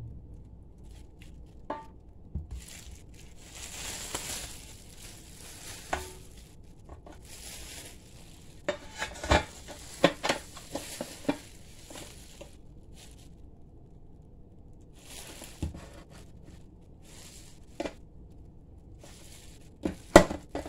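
Stainless steel lunch box tray being handled: scattered clinks and knocks of metal, thickest in a cluster about nine to eleven seconds in, with rustling of plastic wrapping in between.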